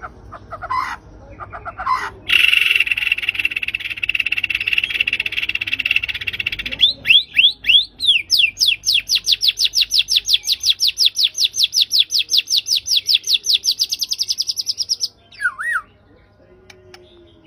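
White-rumped shama (murai batu) singing. It opens with a few short calls, then gives a harsh buzzing trill for about four seconds. Next comes a long fast run of repeated sweeping notes, about six a second, for some six seconds, and it ends with one short lower note.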